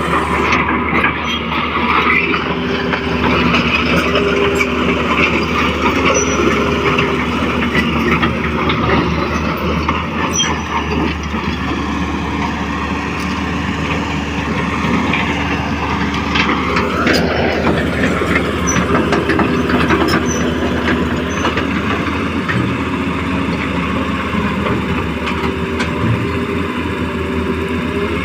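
Hydraulic RC model Hitachi excavator working: its pump motor whines steadily, the pitch stepping up and down as the boom, arm and bucket are moved. A short rising whine comes about two-thirds of the way through.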